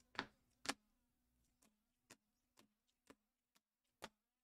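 Scattered light clicks of trading cards in clear plastic holders being shuffled and tapped together in the hands, two sharper ones in the first second, then fainter ones about every half second and another sharper one near the end.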